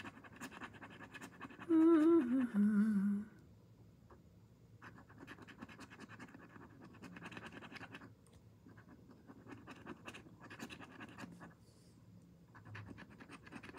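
Scratch-off lottery ticket being scratched: quick, scraping rubbing strokes over the silver coating, coming in short uneven runs. About two seconds in, a person hums briefly, the tune falling in pitch; this hum is louder than the scratching.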